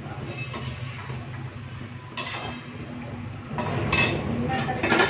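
Metal slotted spoon clinking and scraping against a steel kadhai as frying thekua are turned and lifted out of the bubbling oil. There are several sharp clinks, the loudest near the end, over a steady frying sizzle.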